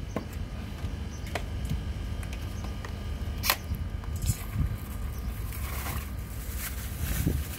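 Hand-handling sounds: scattered sharp clicks and taps, the loudest about three and a half seconds in, as a metal can is set down on the tiled floor and a cardboard fitting box is opened, then short rustles of plastic wrapping as a pipe fitting is pulled out. A steady low rumble lies under it all.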